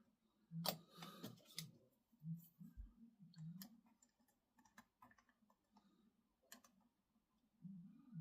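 Near silence with scattered faint clicks and taps of small plastic model-kit parts being handled and fitted together.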